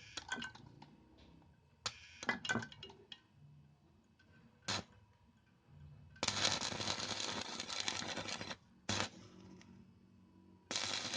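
Stick welding with a homemade self-oscillating SMPS inverter welder: the electrode is tapped and scratched several times in short sharp clicks and spits to strike the arc, then the arc holds with a steady crackle for about two seconds, breaks, and is struck again near the end.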